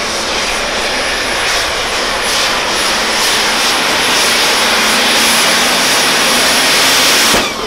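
Case IH super stock diesel pulling tractor's turbocharged engine at full throttle while dragging a weight-transfer sled: a loud, steady engine drone with a thin high whistle above it, building slowly. Near the end it cuts off abruptly.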